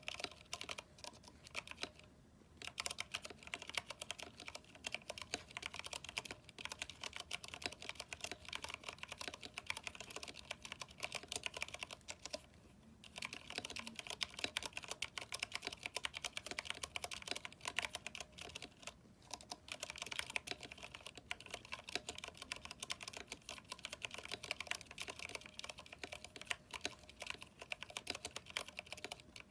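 Continuous fast typing on a mechanical keyboard with Cherry MX Brown switches, lubed stabilizers and PBT keycaps: a dense run of key clacks that breaks off briefly three times.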